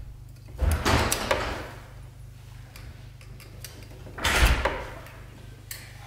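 Two rough metal scrapes, each about a second long, about half a second in and again around four seconds in, from a hand tool worked against the front brake caliper of a 2016 Yamaha R6 during a brake pad change.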